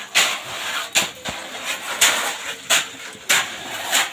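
Shovels scraping and turning a wet gravel-and-cement concrete mix being mixed by hand on the ground, a gritty scrape about every two-thirds of a second.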